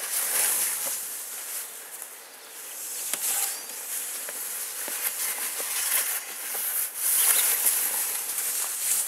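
Scoop shovel pushing and scraping through heavy, wet, slushy snow: a hissing scrape that swells and fades in a few long strokes, with small knocks scattered through it.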